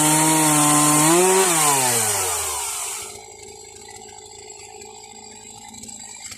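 Chainsaw on an Alaskan sawmill cutting at full throttle with a steady high engine note and the hiss of the chain in wood. About a second in the revs briefly rise, then wind down as the throttle is released, and the saw falls to a much quieter level.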